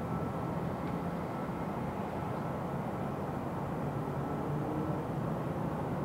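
A steady low engine drone with a faint hum, even and unchanging.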